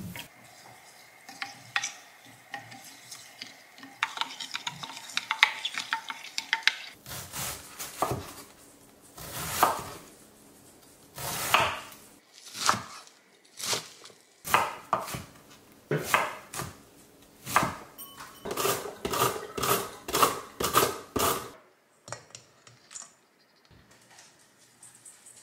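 Kitchen utensils knocking and scraping against bowls and pans during food preparation. A run of quick, even strokes comes about three-quarters of the way through.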